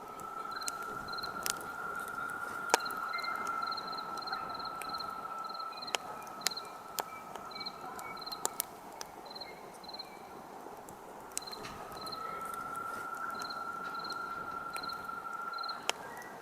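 Campfire crackling with sharp pops, one louder snap about three seconds in. Crickets chirp in short regular pulses, and a steady high whistling tone holds for most of the first half, stops, then returns for a few seconds near the end.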